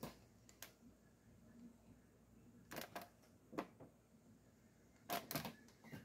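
Faint clicks and knocks of a small heat press being handled, a few scattered through the quiet, then a cluster of louder clicks near the end as the press is opened.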